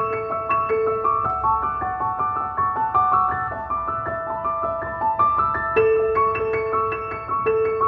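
Background instrumental music: a gentle, steady stream of quick piano notes over a held lower note.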